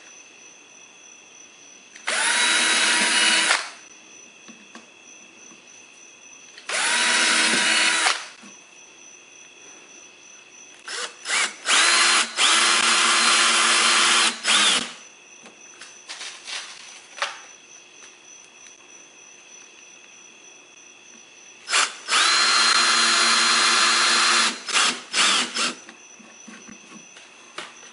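Cordless drill/driver driving screws through rubber tread into a plastic mower wheel, in four runs of one to three seconds each. Each run whines up in pitch quickly and then holds steady, and short trigger blips come around the third and fourth runs.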